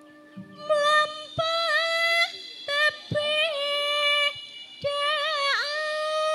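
A female campursari singer's voice over a microphone and PA, singing slow phrases of long held high notes with wavering ornaments and short breaks between them, with little or no band accompaniment.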